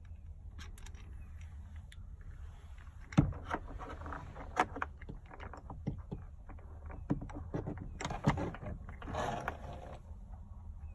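Irregular clicks, knocks and rustling of hand tools and parts being handled, over a steady low hum. The loudest sharp knock comes about three seconds in and another about eight seconds in.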